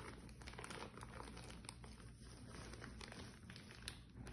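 Faint crinkling and soft tearing of baking paper being peeled off a soft sponge cake, with scattered small crackles; the underdone sponge is sticking to the paper and tearing away with it.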